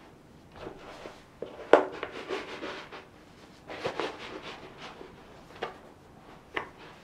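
White FILA canvas sneakers being put on: soles shuffling and tapping on the floor, canvas and laces rubbing, with a sharp tap about two seconds in. A finger works the heel of one shoe near the end.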